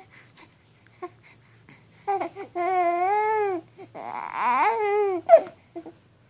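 Eight-week-old baby cooing: two long, drawn-out vowel sounds about two and four seconds in, the second rising and falling in pitch.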